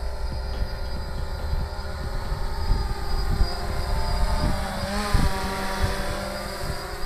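DJI Phantom 2 Vision quadcopter's four motors and propellers buzzing as it flies in close, their pitch wavering as it manoeuvres and loudest about five seconds in. Wind rumbles on the microphone underneath.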